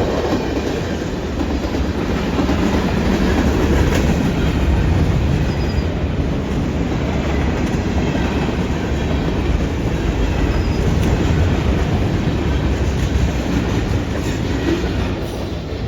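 CN freight train rolling past at close range: a steady rumble with the clatter of wheels over the rails.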